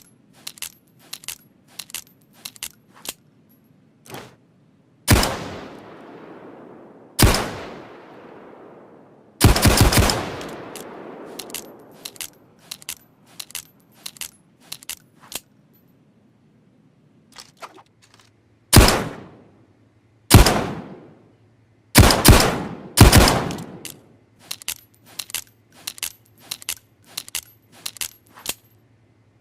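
Ruger New Vaquero single-action revolver firing about eight shots, each ringing out after the crack: three spaced a couple of seconds apart, then a pause, then a quicker string near the end with some shots close together. Between the shots come runs of light metallic clicks from handling the revolver.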